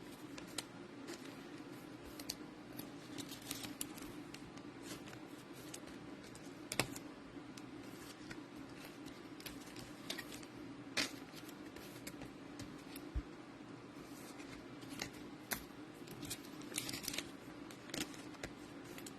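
Faint scattered clicks and light rustling from trading cards and card packs being handled, over a steady low hum.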